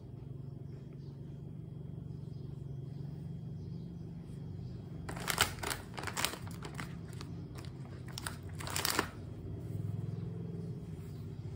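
Paper tissues crinkling and rustling in several short crackly spells about halfway through, over a steady low hum.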